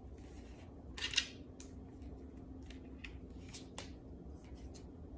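Cards being handled on a table: faint scattered clicks and rustles, one a little louder about a second in, over a faint steady hum.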